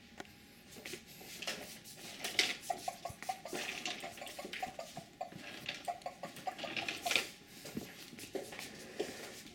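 Plastic pull-along toy chicken rolling over a hardwood floor on its string, clicking and clattering irregularly as it is tugged along.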